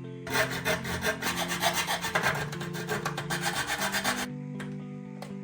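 Quick back-and-forth scraping strokes of a hand tool working a part, about five a second, starting just after the beginning and stopping about four seconds in. Background music plays underneath.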